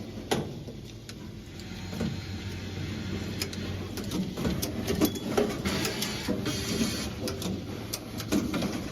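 Automatic wire harness crimping and connector housing insertion machine running: a steady low hum under many irregular sharp clicks and clacks from its moving mechanisms.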